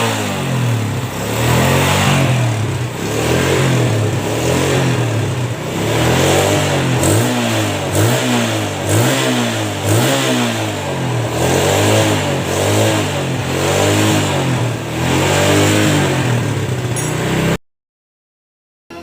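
Yamaha Jupiter Z's single-cylinder four-stroke engine, freshly rebuilt with a new oversize piston, running and being revved up and down about once a second, then cutting off sharply near the end. The owner's mechanic calls its sound now smooth, the earlier rough noise cured.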